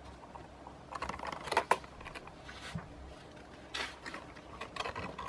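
Cardboard box being handled and turned over in the hands: a few short rustles and scrapes, the sharpest about a second and a half in, with more near the end.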